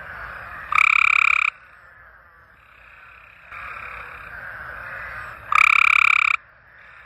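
Frog calling: two loud, even-pitched croaks of under a second each, about five seconds apart, over a fainter steady background chorus.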